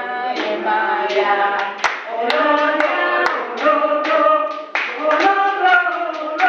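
A woman singing into a microphone, with other voices singing along and hands clapping, the claps irregular rather than in a steady beat.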